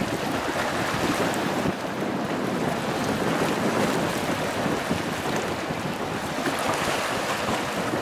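Small waves breaking and washing on a shelly sand beach: a steady rushing wash that swells and eases, with wind noise on the microphone.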